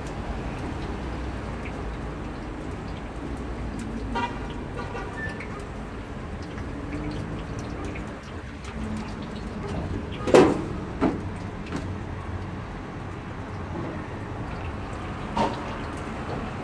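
Dough balls deep-frying in a wide pan of oil, a steady sizzle with street traffic behind it. A short car-horn toot about four seconds in, and a few sharp knocks around ten to eleven seconds and again near the end.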